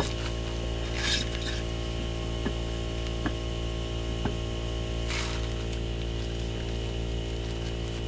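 Tire being levered onto a wheel rim with a tire-mounting bar: scattered sharp clicks and two short scrapes, about a second and five seconds in, over a steady hum.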